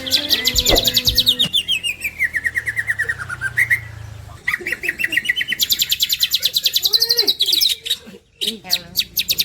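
Greater green leafbird (cucak ijo) singing in rapid, high trills of chirps: a falling trill early on, a fast run of high notes from about halfway, and lower whistled glides near the end.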